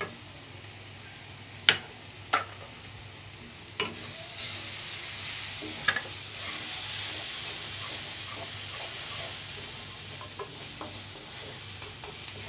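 Onions and freshly added ground spices (turmeric, cumin, coriander, chilli) frying in oil in a pan, sizzling, while a spoon stirs them and knocks against the pan a few times. The sizzle grows louder about four seconds in.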